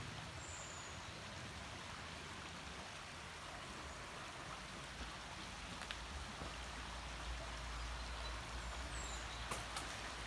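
Steady outdoor background hiss with a few faint, high, short falling chirps near the start and end. A low rumble comes in about halfway through.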